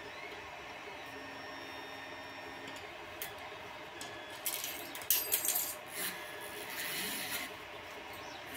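Steady faint room hum, then about halfway in several seconds of irregular scraping and rubbing with small clicks as a rubber GT2 timing belt is pulled and fed around a 3D printer's plastic idlers and carriage.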